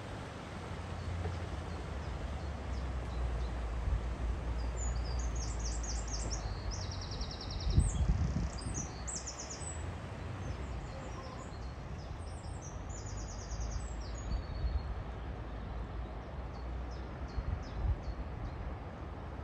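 Birds singing in rapid, repeated chirping trills over a steady outdoor rush with a low rumble. One louder low buffet, like a gust on the microphone, comes about eight seconds in.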